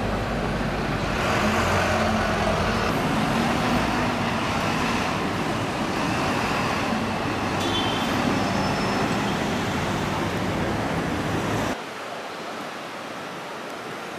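Busy city-street traffic: buses and cars going by, with a steady low engine hum under the noise. The sound drops suddenly to a quieter background near the end.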